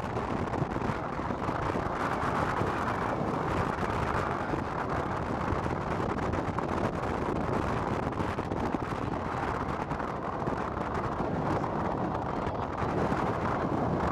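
Steady rush of road and wind noise from a car driving along a street, rising and falling a little, with no distinct events.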